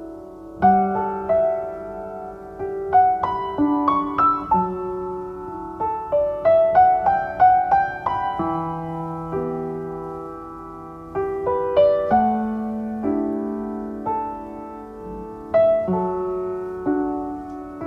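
Solo piano music playing a slow, gentle melody over sustained low notes.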